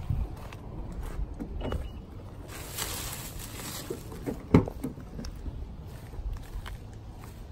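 An SUV's rear door latch clicks sharply as the door is pulled open about halfway through, with a few lighter clicks and handling sounds around it, over a steady low rumble of wind on the microphone.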